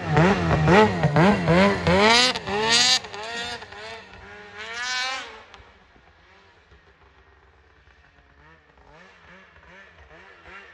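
600 RS race snowmobile's two-stroke engine revved hard as the sled pulls off through deep powder, the pitch rising and falling about twice a second. The sound then fades as the sled moves away, and faint revving comes back near the end.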